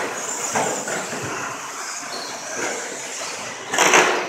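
RC stadium trucks racing on a dirt track: a steady high motor whine with tyre and chassis noise, and a loud short burst of noise near the end.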